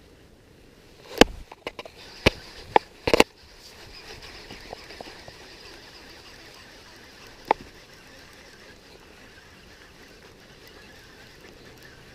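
Sharp clicks and knocks of a baitcasting reel and rod being handled, a quick cluster in the first few seconds and one more about seven and a half seconds in, over a faint steady hiss.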